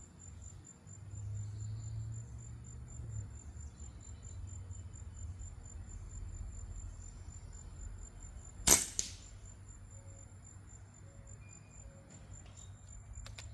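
A single gunshot about nine seconds in, a sharp crack with a short tail, over a steady high-pitched insect trill.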